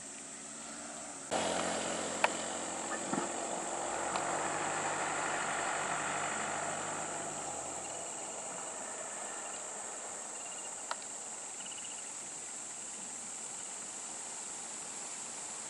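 Insects shrilling steadily in roadside forest. About a second in, a stopped lorry's engine idling joins them and fades out around halfway through. There are a few sharp clicks.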